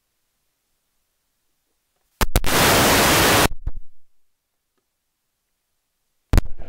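Dead silence broken by a loud burst of static hiss, about a second long, that cuts in and out abruptly; a sharp click near the end.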